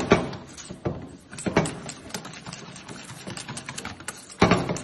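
Wire whisk beating a thick egg-and-cheese cream in a stainless steel bowl: quick, irregular clicking and scraping of metal on metal, with a louder clatter near the end.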